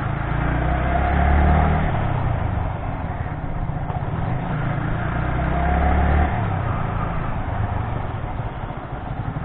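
Wind buffeting and engine rumble picked up by the camera microphone on a moving motorcycle. The low rumble swells twice, about a second and a half in and again near six seconds, then eases.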